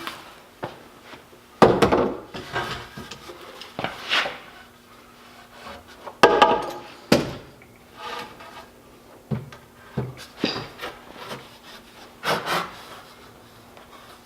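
Lumber and a plywood panel knocking and rubbing as they are handled, with a few sharp bangs from a nail gun driving nails into the wood.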